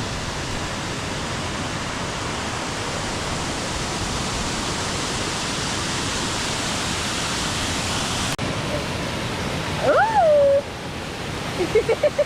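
Large waterfall rushing, a steady roar. About ten seconds in a person gives one loud shout that rises and falls in pitch, and near the end comes a quick run of short cries.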